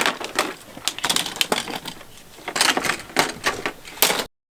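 Plastic toy cars and track clicking and clattering in quick, irregular knocks, with a brief lull about two seconds in, then cutting off suddenly near the end.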